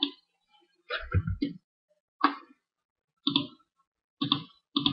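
Computer mouse clicking: six or seven short, separate clicks spread over a few seconds with quiet gaps between them.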